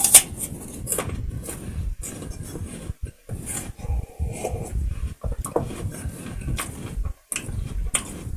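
Close-up eating noises: chewing and mouth sounds with irregular small clicks and knocks of dishes and cutlery.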